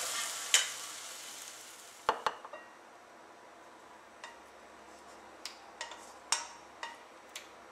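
Hot stir-fried rice sizzling in a non-stick frying pan, the sizzle dying away over the first two seconds as it is tipped into a bowl. Then about a dozen sharp clicks and taps of a serving utensil against the pan, bowl and pot as chicken pieces are lifted onto the rice.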